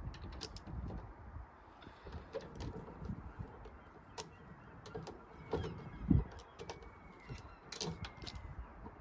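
Scattered sharp clicks and clinks of hand tools on metal, with wind buffeting the microphone in gusts.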